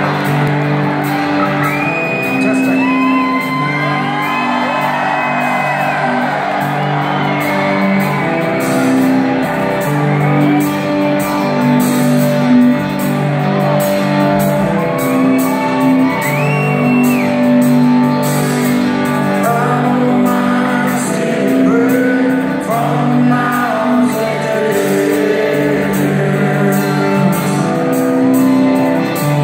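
Live rock band playing through a large hall's PA: a slow, repeating clean electric guitar figure over the band. Audience members whoop and shout over the music.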